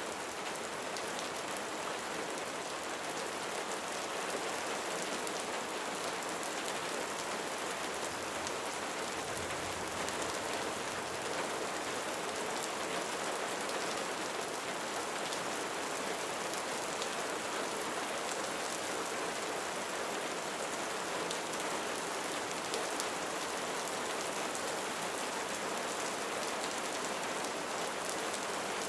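Steady rain falling on a roof: a dense, even patter with scattered individual drop taps.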